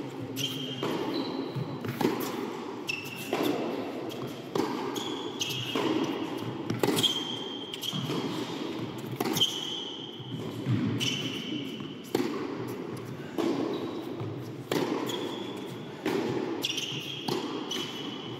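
Tennis rally on an indoor hard court: racket strikes on the ball and ball bounces, about one a second, echoing in a large hall, with short squeaks of tennis shoes on the court between shots.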